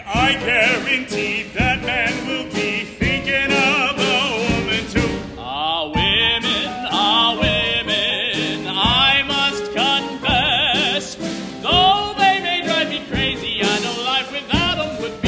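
A man singing a musical-theatre song with vibrato over instrumental accompaniment, moving quickly from note to note.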